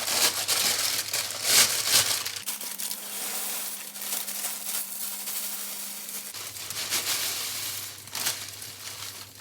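Cornflakes being measured out of their packet: the plastic bag rustling and the flakes rattling into a cup in a run of irregular crackling noises, loudest about two seconds in.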